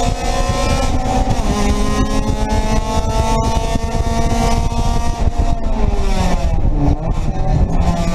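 Race car engine heard from inside the stripped cockpit, pulling hard in gear with its pitch slowly rising. About five seconds in it falls off as the driver lifts and slows, with a change of gear near the end, over steady road and wind noise.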